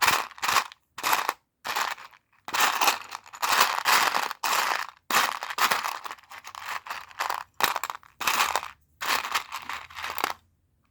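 Loose Lego Technic plastic pieces being rummaged through by hand, making irregular plastic rustling and clattering in short bursts about a second apart, stopping shortly before the end.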